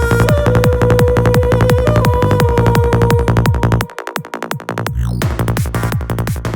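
Electronic dance music with a fast, steady beat and a held synth note. About four seconds in the bass drops out briefly and a sweep follows. The beat then returns more quietly and begins to fade.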